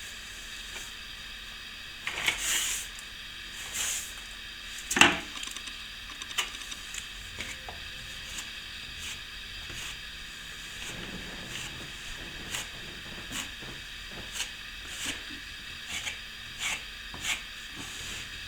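Plasterer's trowel working fresh plaster with water, polishing it up: faint short scraping strokes against the wall, with one sharp knock about five seconds in and a quicker run of strokes in the second half.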